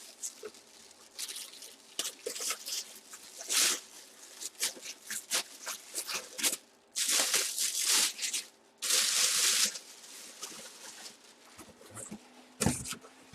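Cardboard and plastic packaging being handled: scattered rustling, scraping and light taps, with two louder spells of rustling about seven and nine seconds in.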